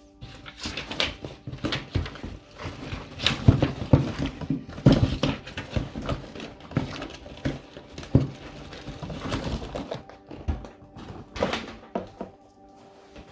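Hands handling parts and packaging: irregular knocks, clicks and rustling in quick succession, loudest a few seconds in.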